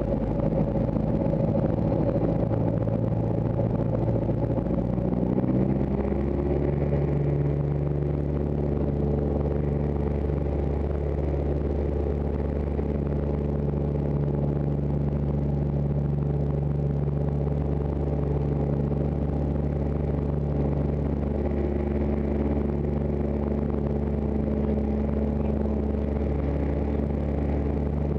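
RV-6 light aircraft's piston engine and propeller running, heard inside the cockpit. The engine note rises about four to six seconds in as power comes up, then holds steady.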